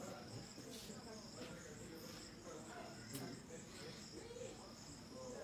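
Insects chirping in a steady, finely pulsing high trill, with faint voices murmuring underneath.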